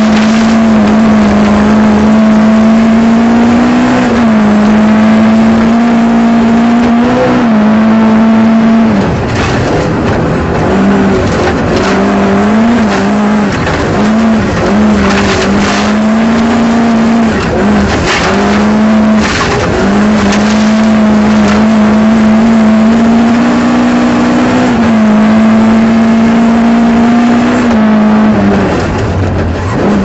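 Rally car engine heard from inside the cabin, driven hard at high revs. The pitch drops briefly and climbs again many times through the stretch as the driver lifts and changes gear, with a few sharp cracks near the middle.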